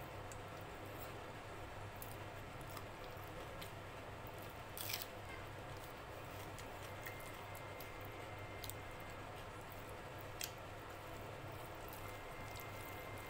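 Fingers squishing and mixing rice with dal on a plate, making faint wet squelches and small clicks over a steady low hum, with one louder sharp click about five seconds in and another near ten seconds.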